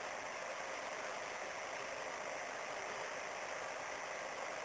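Steady, even hiss of room tone with no distinct events.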